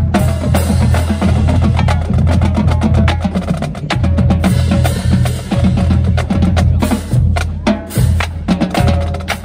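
Marching band drumline playing a cadence: snare drums, multi-tenor drums and a line of pitched bass drums beating out a fast, continuous rhythm.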